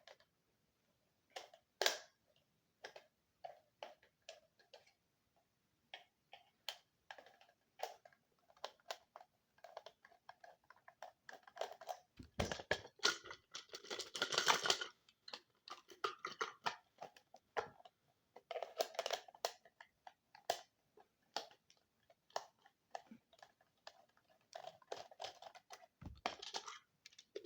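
Irregular clicks, ticks and scrapes of a screwdriver working screws out of a plastic sound machine case and handling its parts, with a denser stretch of scraping about halfway through.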